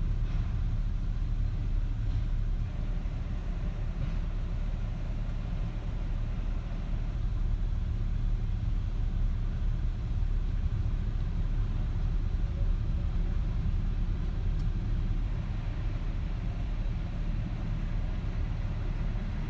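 Union Pacific manifest freight train's cars rolling past, a steady low rumble with no horn or distinct clanks.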